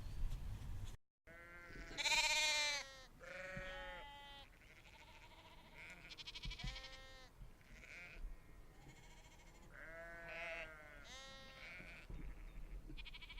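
A string of separate animal calls at several pitches, each about half a second to a second long, the loudest and longest about two seconds in.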